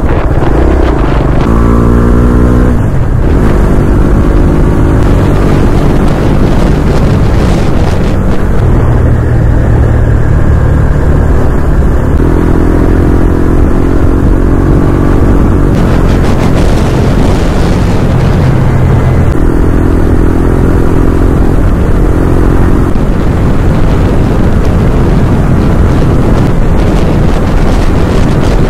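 A vehicle engine running on the move under heavy wind buffeting on the microphone, its pitched engine note rising and fading several times.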